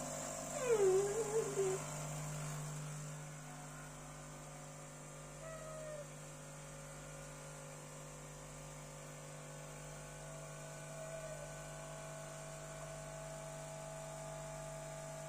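Espresso machine pump humming steadily while a shot pours into the cup. Over it, about half a second in, comes a louder falling, wavering cry, and there are fainter short cries later on.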